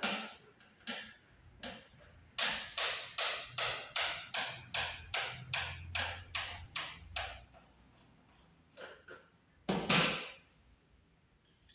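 Screw being driven by hand with a screwdriver into a wire mold box on wood paneling: a run of sharp clicks, about three a second, for about five seconds, then one louder knock near the end.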